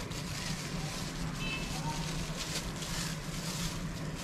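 Clear plastic wrapping crinkling and rustling in the hands as a small part is unwrapped, over a steady low hum.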